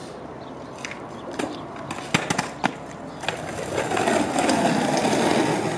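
Cruiser skateboard with thick wheels: a few sharp clacks as the board is put down and stepped on, then the wheels rolling on tarmac as the rider pushes off, starting nearly four seconds in and growing louder.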